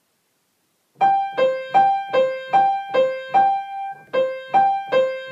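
Piano playing a beginner technique exercise: single notes alternating between a higher and a lower pitch, about two and a half notes a second. It starts about a second in and breaks off briefly near the four-second mark before going on.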